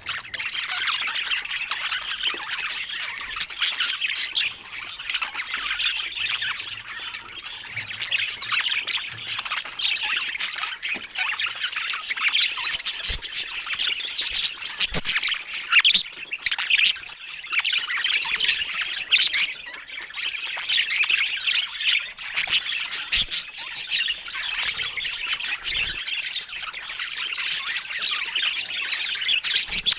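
Budgerigars chattering without a break, a dense stream of short chirps and calls.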